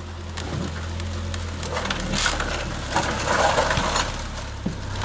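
GAZ-66 truck engine running steadily at low revs, with scattered knocks and rattles over it.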